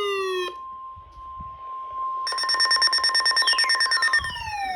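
Weather radio alert tones: a steady, high warning alarm tone, with falling siren-like sweeps over it at the start and again from about three and a half seconds in. A harsh, rapidly pulsing buzz joins about two seconds in and stops shortly after four seconds.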